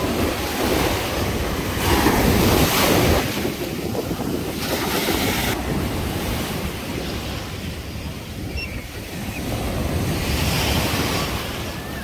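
Heavy surf: waves breaking and washing up the beach, with wind buffeting the microphone. The biggest wave breaks about two seconds in, and another swells up near the end.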